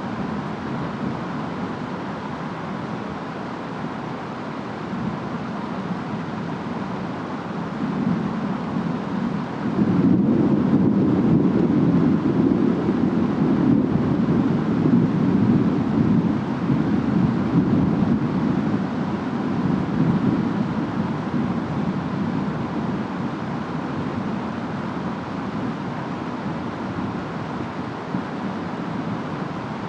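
Steady rain and wind noise, with a long low roll of distant thunder that comes in suddenly about a third of the way through and fades slowly over some ten seconds.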